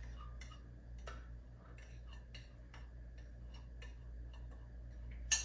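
Faint, scattered light clicks and taps of a spoon against spice containers and the mixing bowl as spices are spooned in, with a sharper click near the end, over a low steady hum.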